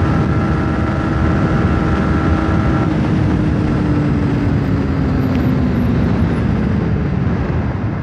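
Yamaha motorcycle riding at highway speed in sixth gear: wind rushing over the microphone with a steady engine drone underneath. The drone falls in pitch over the last few seconds as the bike slows. A thin higher whine cuts off about three seconds in.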